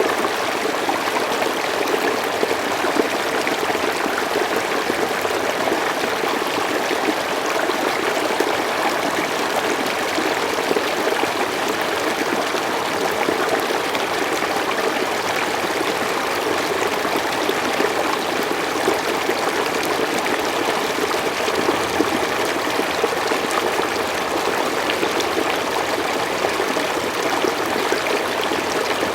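Forest stream flowing over rocks, a steady rush of water with small trickling and splashing flickers.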